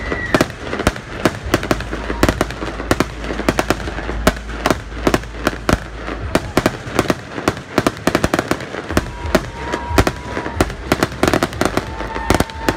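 Aerial fireworks: crackling star shells bursting in a dense, rapid run of sharp pops and crackles.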